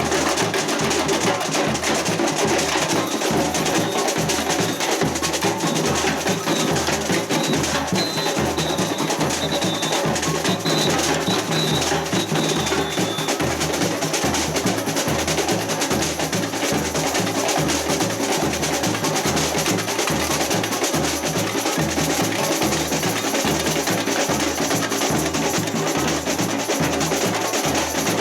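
Samba batucada percussion ensemble playing: deep bass drums keep a steady low pulse under rolling snare drums and sharp, clicking high percussion.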